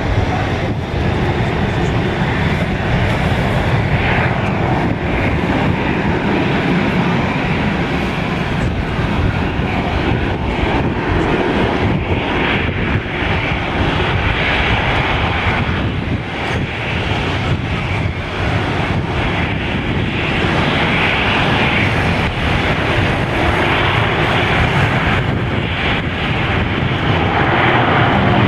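Boeing 767-400ER's twin turbofan engines running loud and steady on its takeoff, a dense jet noise that swells slightly near the end.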